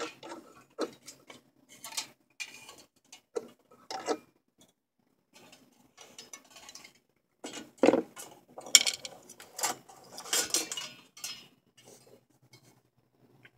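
Handling noise from a phone camera held against hair and clothing while being carried: irregular clicks, taps and rustling, with a louder burst of rubbing and scraping about eight seconds in.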